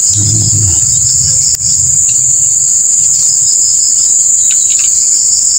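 Loud, steady, high-pitched insect chorus shrilling without a break, with a few faint light clicks about four and a half seconds in.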